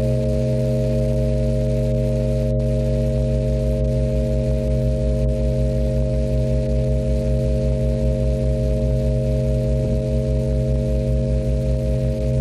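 Sustained drone music from electric guitar and MIDI controller: several steady held tones sounding together, with a low throbbing pulse that sets in about three seconds in.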